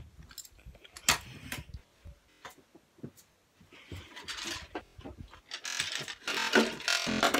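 Scattered clicks and knocks of toys and small plastic objects being picked up and handled, becoming a denser run of clattering and rustling in the last two seconds or so.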